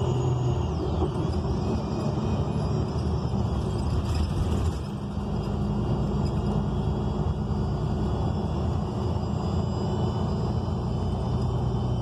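Interior sound of a 2019 ENC Axess bus running, with its Cummins Westport L9N natural-gas engine and Voith D864.6 automatic transmission: a steady low rumble and engine hum, dipping slightly about five seconds in. The HVAC is off, so no fan noise covers the drivetrain.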